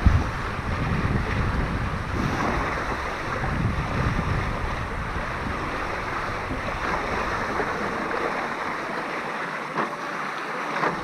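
Wind rushing over the microphone and water rushing and splashing past the hulls of a Tornado racing catamaran sailing at speed, with a short knock at the very start.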